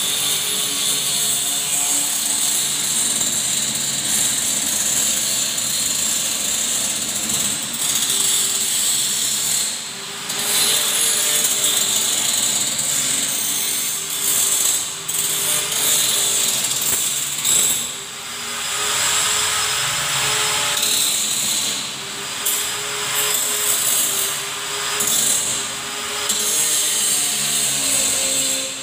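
Handheld corded electric drill running under load as it drills at the window frame for mounting a window grille. It runs in long bouts, with a few short pauses where it eases off and starts again.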